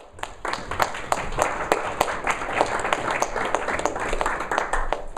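Audience applauding: many hands clapping, dying away at the end.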